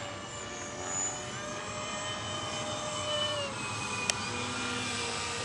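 Twin E-flite 70 mm electric ducted fans of a radio-controlled Su-34 jet whining steadily in flight, the pitch dipping slightly about three and a half seconds in. A single sharp click comes about four seconds in.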